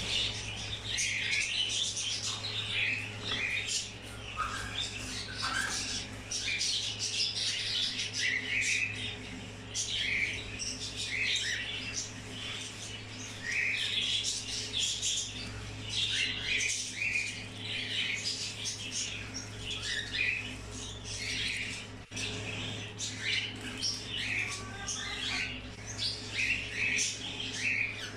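Pet conure parrots calling without pause, short chirps and squawks following one another quickly, over a steady low hum.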